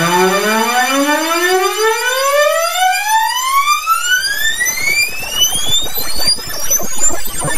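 MIDI playback of a synthesized tone sliding steadily upward in pitch like a siren, climbing for about six seconds. A jumble of short notes and noise builds up under it during the second half.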